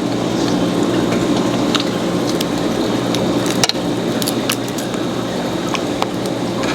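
Close-up eating sounds of lobster and seafood: wet squishing and chewing with scattered sharp clicks, the sharpest about three and a half seconds in, over a steady low hum.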